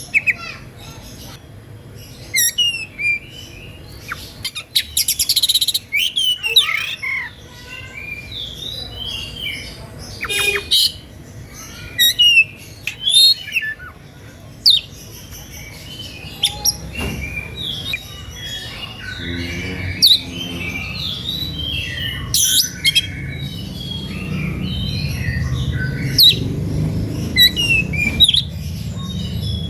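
Oriental magpie-robin (kacer) singing a fast, varied song of sharp whistled chirps, sweeps and short trills in the agitated 'emosi' style, a song that provokes other magpie-robins into singing back. A low hum grows louder underneath in the second half.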